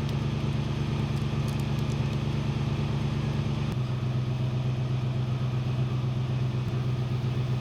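Pickup truck engine idling steadily, its pitch stepping down slightly a few seconds in.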